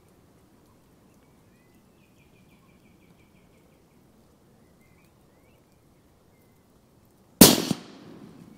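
A single loud rifle shot from a Tikka T3 in .243, about seven seconds in, dying away over about a second.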